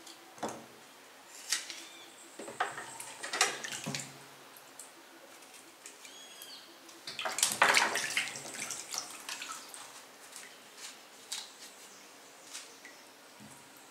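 Water splashing and sloshing in a plastic basin as hands handle and cut jambo fruits (Malay apples) soaking in it, with scattered small clicks. The loudest splashing comes about halfway through.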